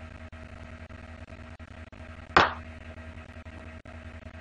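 Steady electrical hum with a single sharp knock a little past halfway, on the workbench where the soldering iron is being lifted off the part.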